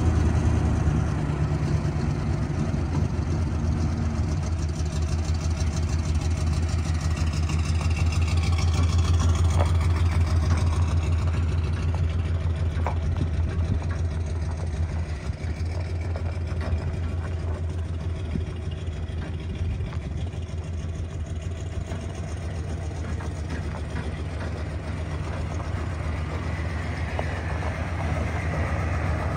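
1997 Ford F-250 pickup's engine running as the truck is driven off and brought back: loudest about nine seconds in, fading through the middle, and rising again near the end as it comes closer.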